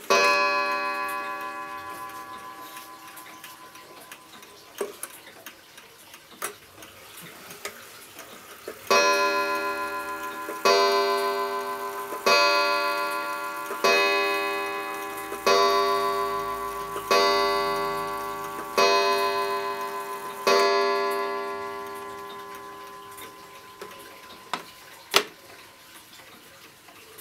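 Perivale 8-day mantel clock striking: one strike for the half hour, then about nine seconds later eight strikes about a second and a half apart for eight o'clock, each ringing on and fading. The movement ticks quietly between strikes, and there is a sharp click near the end.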